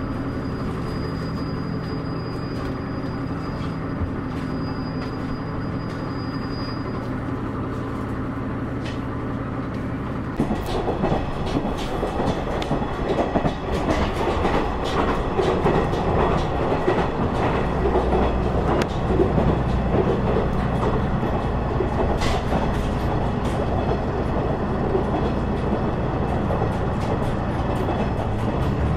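Diesel train on the Kitakami Line: a steady engine hum for about the first ten seconds, then a louder rattling run with clicks of the wheels over the rail joints.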